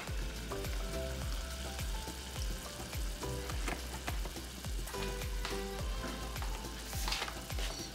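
A saucepan of broth, vegetables and cream sizzling softly on a gas burner as it comes up to a simmer, under background music with a steady beat.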